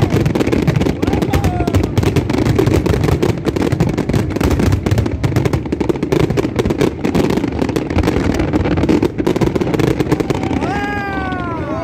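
Fireworks display crackling with a dense, continuous stream of rapid pops and bangs. Near the end a pitched whistle rises and falls.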